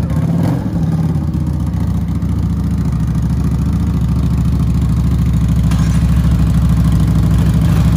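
Kawasaki Ninja 300's parallel-twin engine idling steadily through its stock exhaust, growing slightly louder over the last few seconds.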